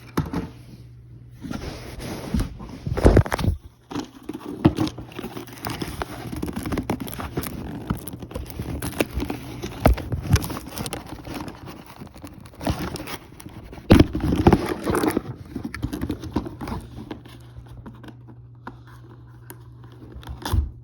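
Toy packaging being handled and opened, with crinkling plastic and cardboard, scraping, and irregular knocks and clicks; the loudest knocks come about 3, 10 and 14 seconds in.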